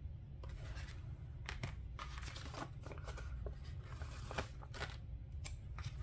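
Sheets of planner stickers being handled: scattered rustles and crackles of paper as the sheets are picked up, bent and laid down, over a low steady hum.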